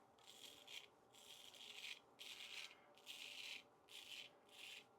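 A shaving brush being worked through soap lather on the face, a soft, rhythmic swishing with about one stroke every half second.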